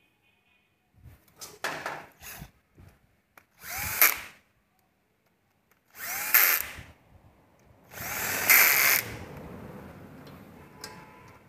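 Handheld power tool run in three short bursts, each with a rising whine as it spins up, the last trailing on more quietly. It is driving bolts as a motorcycle engine is reassembled. A few light clicks of tools being handled come before the first burst.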